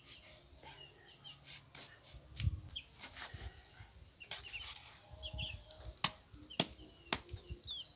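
Kitchen knife cutting up a plucked chicken carcass by hand, with scattered sharp clicks, while birds chirp briefly and often in the background.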